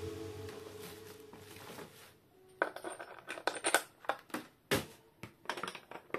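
The tail of background music dies away over the first two seconds. Then come irregular clicks and knocks of hard plastic fan parts being handled and lifted, with some rustling of plastic packaging.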